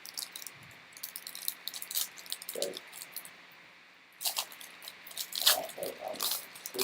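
Trading cards and a foil pack wrapper being handled: a run of light crinkles and clicks, with a short lull in the middle before they pick up again.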